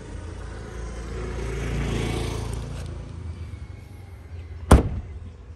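A hatchback tailgate slams shut once near the end, a single sharp bang, after a few seconds of low rumbling noise.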